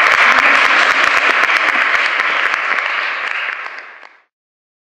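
Audience applauding, easing off slightly before cutting off suddenly about four seconds in.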